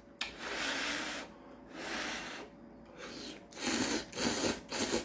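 A person slurping instant ramyeon noodles: a string of noisy sucking draws with short breaks, louder and quicker in the last second and a half.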